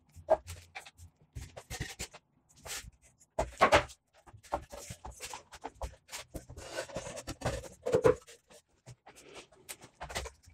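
Wooden finger-jointed box panels being handled and fitted together in a clamping frame: irregular knocks, clicks and scraping of wood on wood and on the clamp parts, with the loudest knocks about a third of the way in and again near two-thirds.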